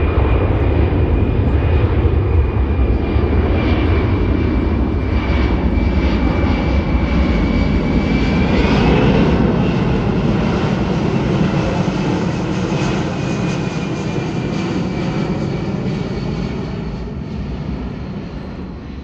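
Boeing C-17 Globemaster III making a low, slow flyby on its four turbofan engines: a loud jet rumble with a high whine running over it. The whine bends up in pitch about halfway through, and the sound fades away over the last few seconds as the plane moves off.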